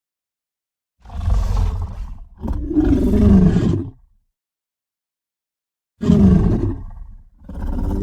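Creature sound-effect roars made to represent a sabre-toothed cat (Smilodon): two roars back to back about a second in, then after a two-second pause another pair, the second running on past the end. Each is a deep, rough big-cat roar whose pitch falls.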